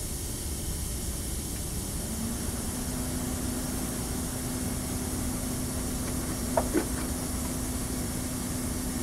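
Steady background hiss, joined about two seconds in by a steady low hum, with two light clicks in quick succession about two-thirds of the way through.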